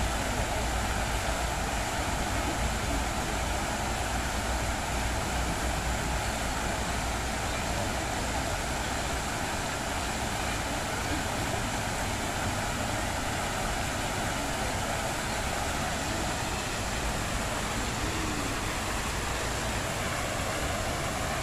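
Fountain jets splashing steadily into the basin, an even rushing of water, with a low rumble underneath that eases about halfway through.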